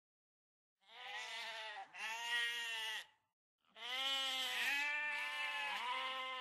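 Goats bleating: a run of long, wavering bleats, two shorter ones and then a longer stretch, with brief breaks between.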